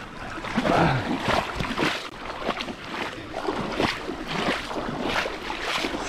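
River water splashing and sloshing at the bank in irregular bursts, with short knocks.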